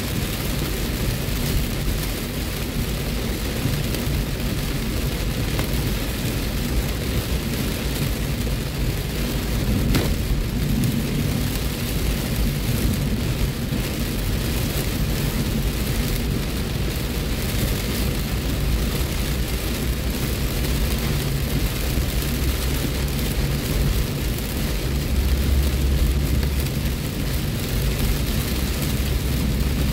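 Heavy rain hitting the roof and windshield of a moving car, heard from inside the cabin, over a steady low rumble of tyres and engine on the wet road. The rumble swells near the end, and there is a single sharp tick about ten seconds in.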